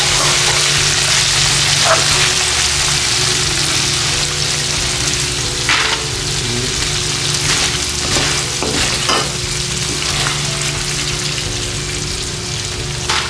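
Grasshoppers deep-frying in hot oil in a metal pan, sizzling steadily as they turn crispy. Tongs and a spatula scrape and clink against the pan several times as the insects are stirred and lifted out.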